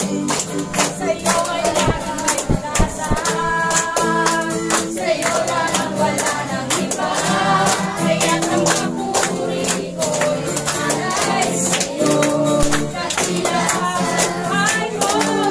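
Congregation singing a Tagalog praise song together over accompanying music, with hand clapping in time.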